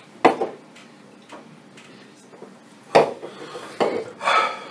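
Metal spoons clinking and scraping against ceramic bowls of beans, with a few sharp knocks; the loudest come about a quarter second in and about three seconds in.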